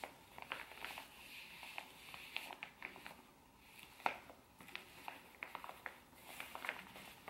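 Faint soft rubbing of a fabric tanning mitt being worked over the skin of the face, with scattered small clicks and ticks at irregular moments.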